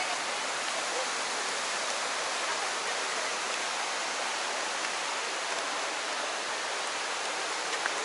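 Steady rush of water over rocks in the river below Dudhsagar Falls, an even hiss.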